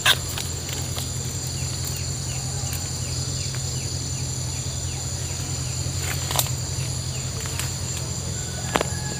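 Steady high-pitched insect drone over a low steady hum outdoors, with a quick run of short falling chirps a few seconds in. Sharp metallic clicks from the wire cage trap being handled come right at the start, about six seconds in and near the end.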